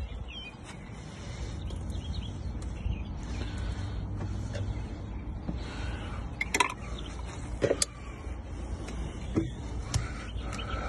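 A few light clicks and knocks as PVC pipe and a plastic three-way valve are handled and fitted together, over a steady low rumble.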